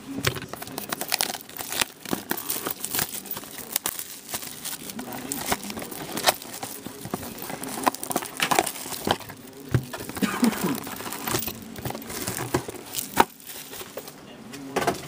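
Plastic shrink-wrap being torn and crinkled off a sealed Panini Select hockey card box, in many irregular sharp crackles.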